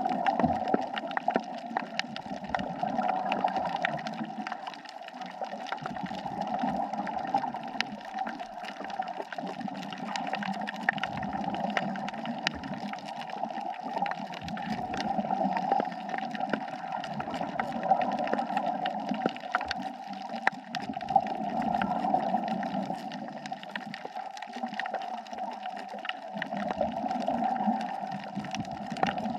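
Underwater sound of a scuba diver's regulator: breathing bubbles gurgle, swelling and fading every few seconds. Fine clicks crackle steadily throughout.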